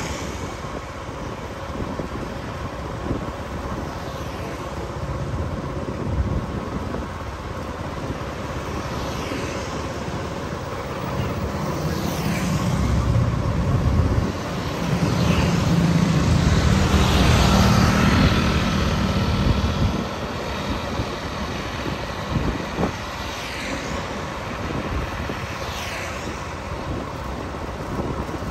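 Road and traffic noise heard from a moving vehicle, a steady drone of engine and tyres with other vehicles swishing past several times. A louder low rumble swells from about halfway through and drops back a few seconds later.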